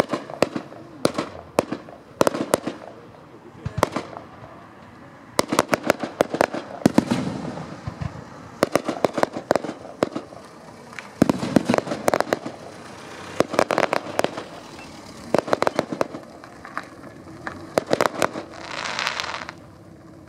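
Fireworks display: aerial shells bursting in rapid volleys of sharp bangs and crackles, coming in dense clusters every couple of seconds, with a short hiss near the end.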